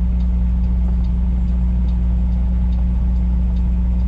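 Semi-truck diesel engine running steadily, a constant low drone heard inside the cab as the truck drives along.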